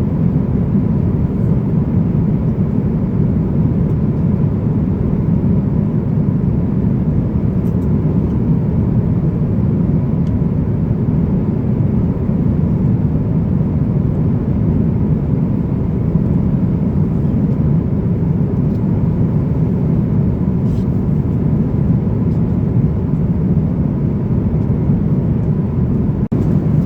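Airbus A350-900 passenger cabin in cruise: a steady low rush of engine and airflow noise with a faint steady high tone. It cuts out briefly near the end.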